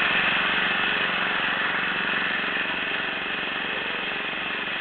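Steady hum of an engine running in the background, slowly getting a little quieter.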